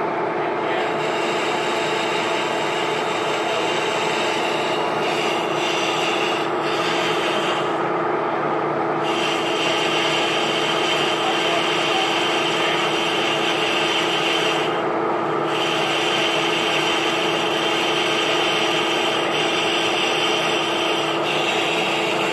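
Metal lathe running while a cutting tool turns a taper on the head of a cast-iron piston. A steady drone from the machine runs under a hissing cutting noise, and the hiss drops away briefly twice, about a third and two-thirds of the way through.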